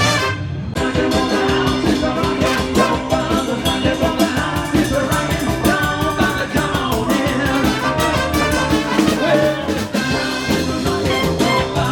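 Live horn band playing an upbeat instrumental passage: brass and saxophone lines over a steady drum beat.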